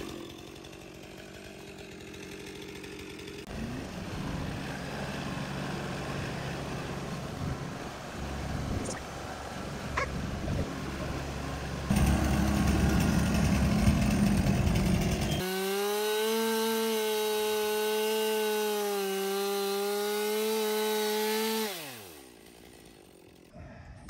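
Chainsaw mounted in an Alaskan chainsaw mill, running hard as it rips lengthwise through a hemlock log, in several short stretches. Near the end it holds a steady high pitch, then the revs fall away about two seconds before the end as the throttle is released.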